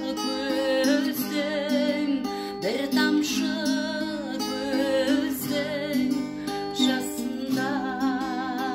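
A woman singing long held notes with a wavering vibrato, in Kazakh, over a strummed acoustic guitar.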